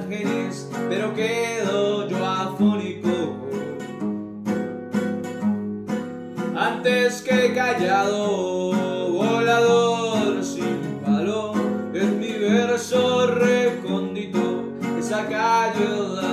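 A bandola strummed in quick, steady strokes while a man sings a melody over it.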